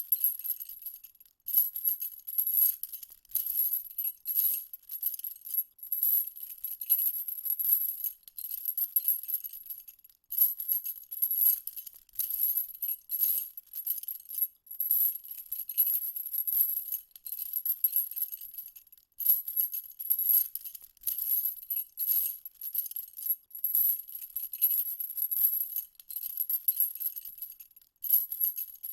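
High-pitched jingling, shaken in uneven bursts about a second long with brief pauses between them.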